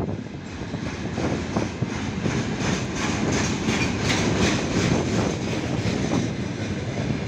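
Freight train of loaded container flatcars rolling past: a steady rumble of steel wheels on rail, with a quick run of wheel clicks in the middle.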